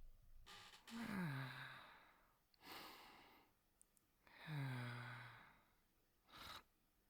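A person's soft, sleepy breathing performed as gentle snoring: two slow exhales, each voiced as a sigh that falls in pitch, and each followed by a quieter breathy inhale.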